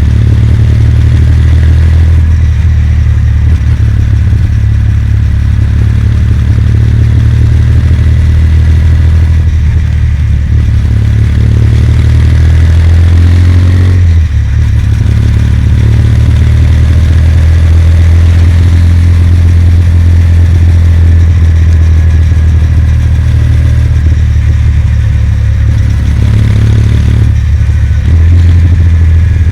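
Kawasaki W800's air-cooled parallel-twin engine running steadily under way, heard from the rider's position, with a brief dip and change in pitch about halfway through.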